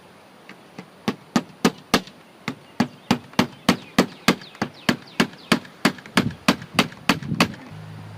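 Hammer driving a nail with a quick, even run of about two dozen blows, roughly three a second; the first two are light taps, then the strikes come hard and stop near the end.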